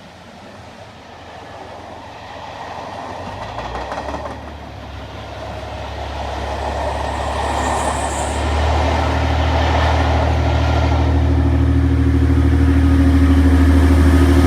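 A passenger train's coaches rumbling past with wheels clattering over the rail joints, growing louder. From a few seconds in, a steady low engine hum builds beneath it and becomes the loudest sound near the end.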